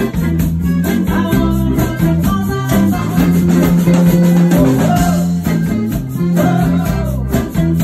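A live rock band playing: electric bass holding low notes over drums with a steady beat and guitar, with a woman singing.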